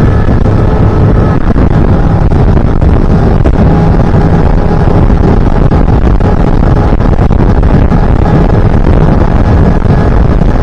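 Fishing boat's motor running steadily at speed, loud, with wind buffeting the microphone.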